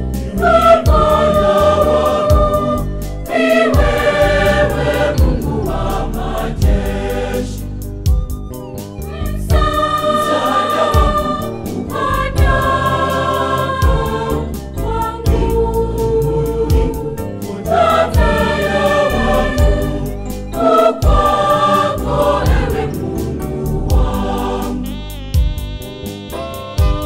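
Church choir singing a gospel hymn in several voices, in phrases, over a steady beat.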